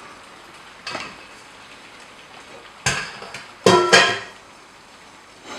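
Clatter of a stainless steel frying pan and utensil on a gas hob: a light knock about a second in, then a few louder clanks with a metallic ring between three and four seconds in. The egg mixture sizzles faintly between them as it cooks on low heat.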